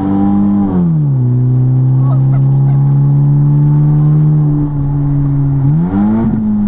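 Car engine and loud exhaust drone heard from inside the cabin. The pitch drops about a second in, as with an automatic transmission upshifting, holds steady, then climbs again near the end as the car accelerates.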